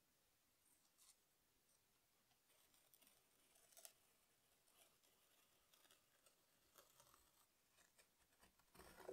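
Faint, irregular scraping and small clicks of a small triangular-bladed knife cutting through a soft clay slab, with louder scrapes about four seconds in and near the end.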